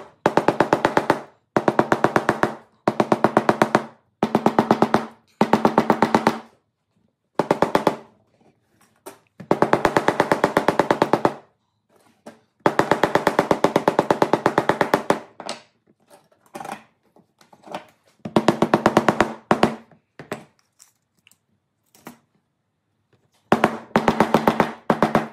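Rapid light tapping on contact-cemented leather belt layers between the conchos, setting the glued layers together. The taps come in quick runs of about one to two seconds with short pauses between them, and each run carries a ringing tone.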